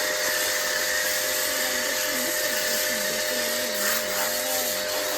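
Shakti Technology S5 electric pressure washer running, a steady motor whine over a constant hiss of spray.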